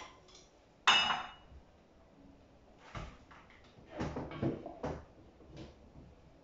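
Kitchen handling clatter: a sharp ringing clink about a second in, then a few knocks and clunks about four to five seconds in as a low kitchen cupboard is opened and rummaged.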